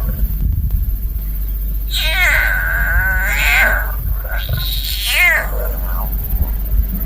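Lion cub meowing for its mother: two long, wavering, high calls in quick succession, the plaintive begging call of a hungry cub, over a steady low rumble.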